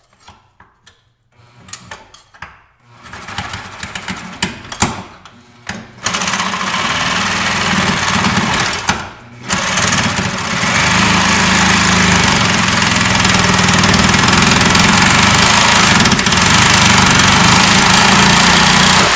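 Scattered knocks and clicks, then from about six seconds in a Milwaukee Sawzall reciprocating saw runs steadily, cutting through a rusted fuel-tank strap bolt, with a short break near nine seconds.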